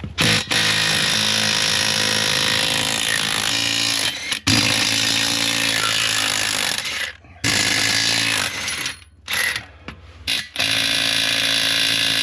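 Impact wrench hammering on a stuck tractor wheel nut in several long bursts with short pauses, without breaking it loose.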